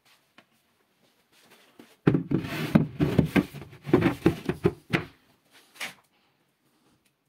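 Knocks and scrapes of a white IKEA PAX wardrobe panel being gripped and shifted. They start about two seconds in and last about three seconds, followed by a couple of softer knocks.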